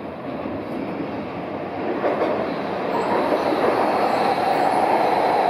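Hokuriku Shinkansen Hakutaka bullet train running into the station platform, its running noise growing louder as it nears. A steady whine comes in about three seconds in.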